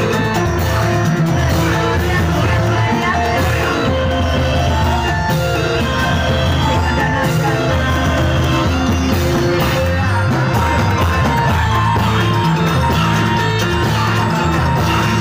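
Loud live music for a reog performance: a percussion-driven ensemble playing without a break, with voices shouting and yelling over it.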